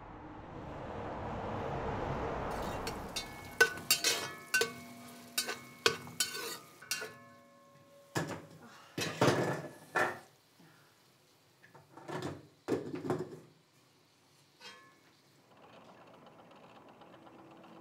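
Dishes and cutlery clinking: a string of sharp clinks that ring briefly, with a soft hiss at the start and a few louder rushes of noise in the middle.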